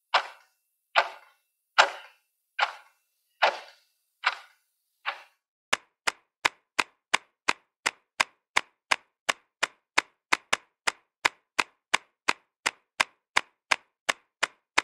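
A steady series of short ticking knocks, about one every 0.85 s, which gives way about six seconds in to sharper, lighter ticks about three times a second.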